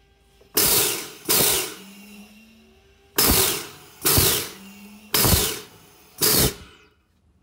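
Air-driven two-stage double-acting gas booster pump stroking slowly while building nitrogen pressure toward 8,000 PSI: six sharp blasts of exhaust air in three pairs, each dying away quickly.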